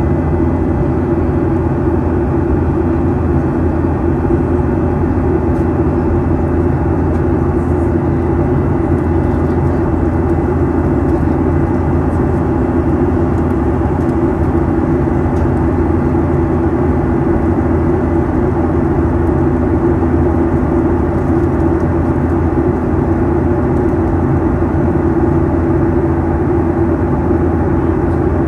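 Boeing 737-800 cabin noise in flight, heard from a window seat beside the CFM56-7B turbofan engine: a steady, loud mix of engine hum and airflow rush. Several low steady tones and a faint high whine run through it without change.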